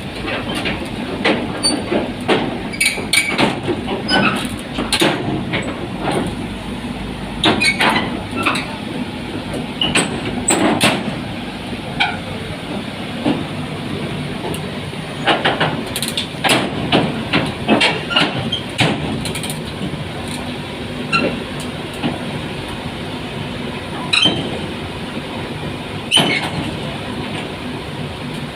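Zoomlion ZE135 excavator running during loading: a steady engine drone under frequent, irregular metallic clanks and knocks.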